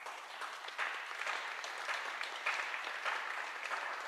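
Audience applauding, starting suddenly and carrying on steadily.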